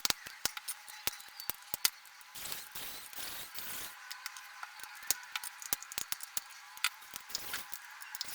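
Small, sharp clicks and taps, closely spaced, with a couple of brief scraping stretches: the plastic housing and parts of a JBL Pulse Bluetooth speaker being handled and taken apart by hand.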